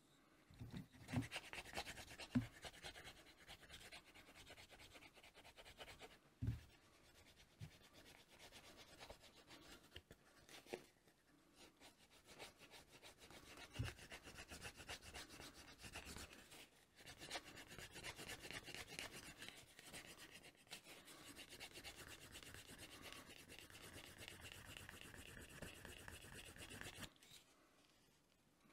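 A grooved wooden burnisher rubbed back and forth along the edge of a leather strap: a steady, faint rasping friction that rounds off and smooths the edge. A few light knocks come in the first half, and the rubbing stops shortly before the end.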